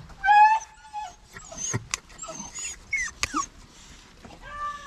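Beagle whining and whimpering in several high, wavering cries, the loudest in the first second and another drawn-out one near the end, with a few sharp clicks in between.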